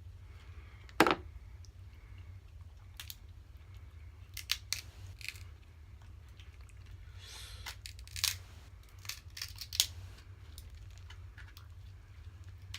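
King crab leg shells being cracked and snipped open: a run of scattered sharp snaps and clicks, the loudest about a second in, with a brief rustle partway through, over a steady low hum.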